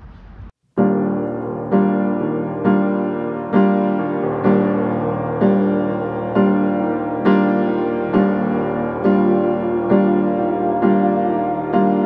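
Background piano music laid over the footage, one chord struck about once a second in a steady slow pulse. It starts just under a second in, right after a brief silent cut from faint street noise.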